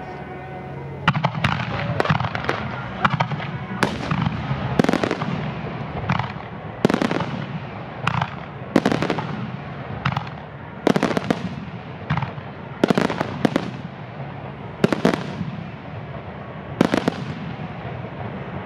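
Starmine fireworks: aerial shells bursting with sharp bangs about once a second, starting about a second in, with a dense haze of smaller cracks between them.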